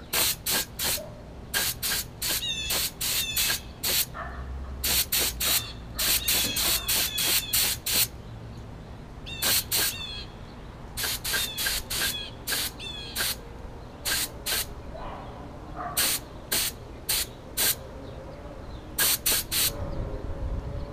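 Compressed-air paint spray gun hissing in short bursts as the trigger is pulled and released again and again, dozens of spurts of a second or less in quick runs with brief pauses, coating a small part.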